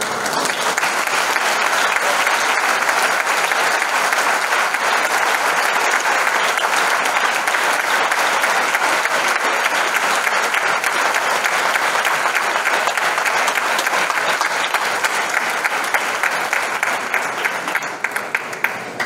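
Audience applauding, starting abruptly and holding steady, then thinning into scattered separate claps near the end.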